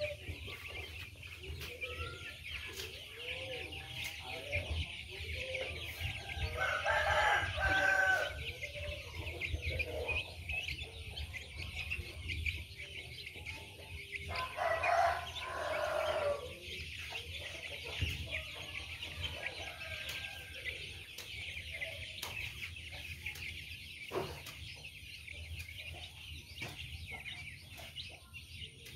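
Young chickens clucking and calling as they feed, with a rooster crowing twice, once about seven seconds in and again about eight seconds later.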